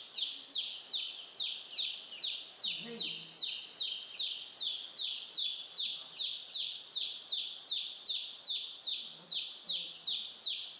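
Chicks peeping continuously: a rapid, very even run of short high peeps, about three a second, each falling in pitch.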